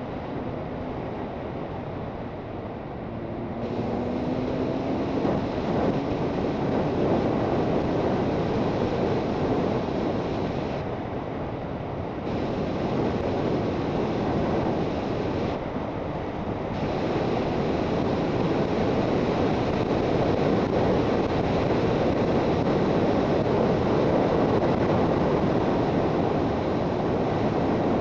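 Suzuki GSX650F motorcycle under way: its inline-four engine note rises as it accelerates during the first few seconds, then steady wind rush over the microphone covers most of it at speed.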